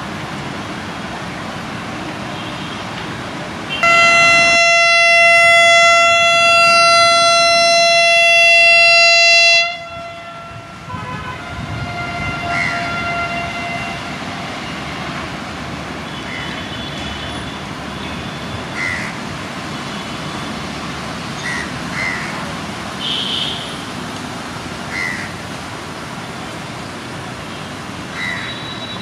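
Electric train's horn sounding one long, steady, single-pitch blast of about six seconds, much louder than everything else, followed shortly after by a fainter, shorter horn note. Around it is steady railway station noise with short, high chirps now and then.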